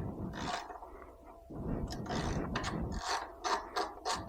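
Socket ratchet clicking in quick runs as a bolt on a motorcycle's front end is backed out; the bolt was already loose, so it turns freely.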